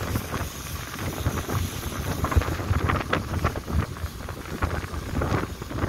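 Wind buffeting the microphone aboard a long-tail boat under way, in uneven gusts, over the general rush of the moving boat.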